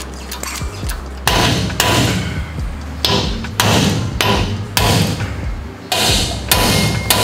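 Hammer striking metal: about nine hard blows, mostly in pairs, each with a short ring. The part is being driven in until it bottoms out.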